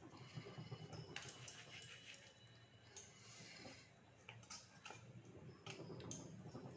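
Near silence, with a few faint clicks and taps spread through it.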